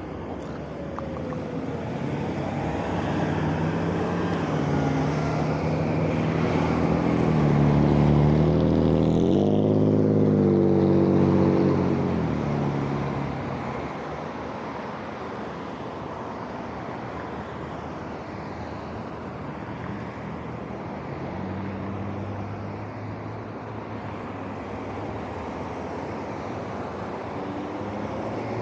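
Road traffic passing a busy intersection. A motor vehicle's engine grows louder, is loudest about ten seconds in as its pitch rises under acceleration, then fades into steady traffic noise. Another engine passes near the end.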